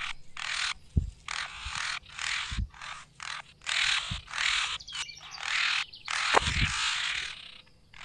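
A bird calling harshly and repeatedly, a dozen or so short noisy cries with brief gaps between them. A few low thuds are heard among them.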